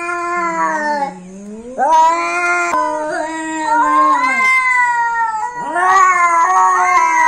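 Two domestic cats yowling at each other in a territorial standoff: long, drawn-out, wavering howls, with a lower moan between about half a second and two seconds in. Their calls overlap near the end.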